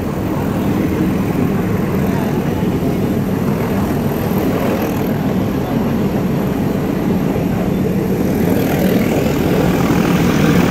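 Steady rumble of the Ooty toy train's carriages running along the metre-gauge Nilgiri Mountain Railway track, heard from an open carriage window, getting a little louder near the end.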